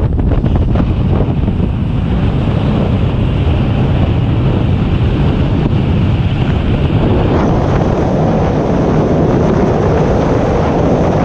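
Loud, steady wind buffeting the microphone, mixed with water rushing past the hull, as a bass boat runs across open water.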